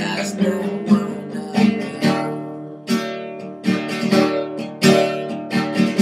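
Classical guitar being strummed. From about two seconds in, the chords come as separate strums roughly a second apart, and the last chord near the end is left to ring out.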